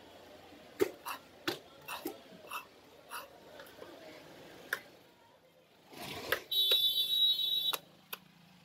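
Knife strokes scraping and knocking on a large catla fish and its wooden chopping block, several sharp ones in the first five seconds. About six and a half seconds in, a loud electronic buzzing alarm sounds for about a second and cuts off.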